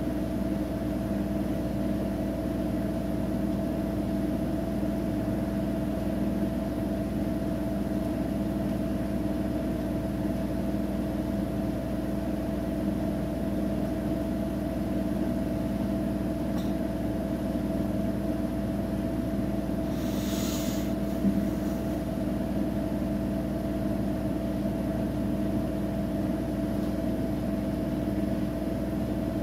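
Siemens iQ700 front-loading washing machine in its final spin, running at a steady speed with a constant hum made of several steady tones. A short hiss comes through about twenty seconds in.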